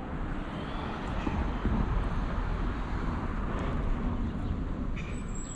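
City street traffic: cars and engines passing, a steady rush with a low rumble that swells louder through the middle and eases off near the end.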